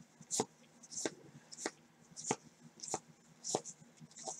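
1989 Score football trading cards being flipped through one at a time by a gloved hand, each card giving a short crisp snap as it is moved, about one every two-thirds of a second.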